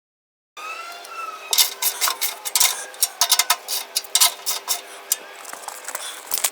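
Metal hand tools clinking and clicking on exhaust clamp hardware: a quick, irregular run of sharp metallic clicks over a faint steady hum.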